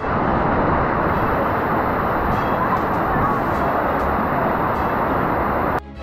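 A waterfall's water falling steadily, an even rushing noise with no breaks.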